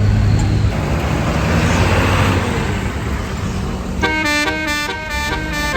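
A vehicle's engine rumble and a swell of road noise. About four seconds in, a tour bus's Basuri telolet horn starts playing a quick melody of changing multi-tone notes.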